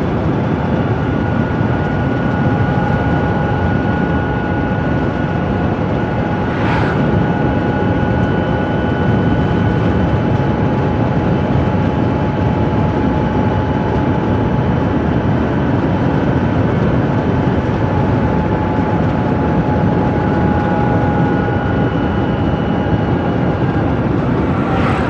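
Microlino electric microcar driving at about 70 km/h, heard from inside its small cabin: a steady rush of road and wind noise.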